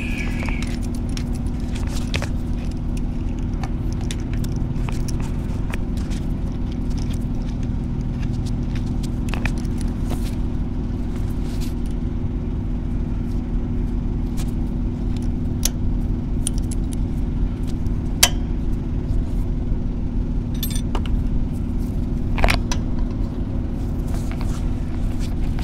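Steady low engine drone, with a few sharp metallic clicks and clinks from locking pliers worked on a truck's air-brake pressure protection valve fitting.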